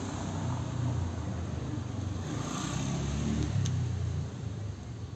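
A cat purring close up: a low, pulsing rumble that swells and breaks in stretches of about a second, with one small click about two-thirds of the way through.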